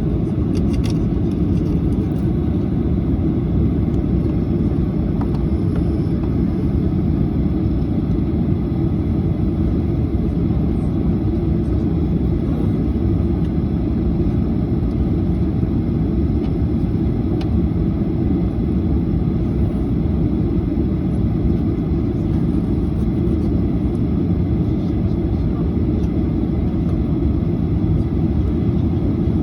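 Steady low rumble inside an airliner cabin as the plane taxis on the ground.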